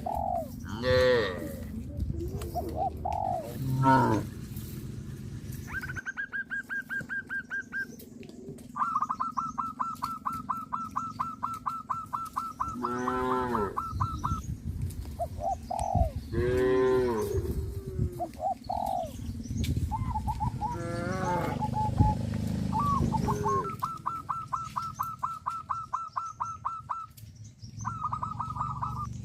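Birds calling in long runs of rapid, even trills, repeated several times, with cattle lowing now and then between them in a few drawn-out calls.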